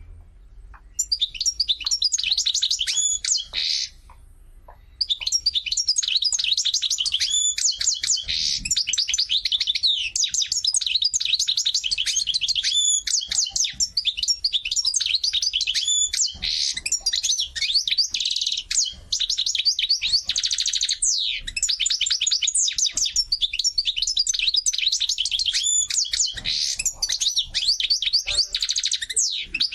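A small songbird singing a long, fast run of high chirps and trills, with a short break about four seconds in.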